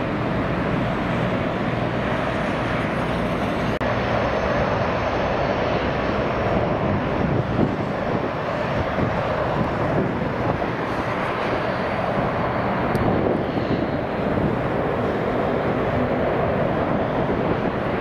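Boeing 737-800's CFM56-7B jet engines running steadily at low taxi power as the airliner rolls slowly toward the runway. There is a brief break in the noise about four seconds in.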